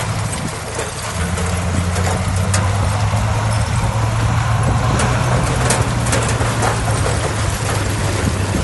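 Heavy diesel earthmoving machinery running steadily, its low engine note strengthening about a second in, with scattered sharp clanks and knocks.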